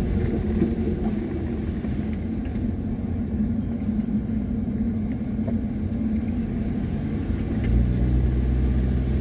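A car driving along, its engine and tyres making a steady low rumble, which grows heavier a little before the end.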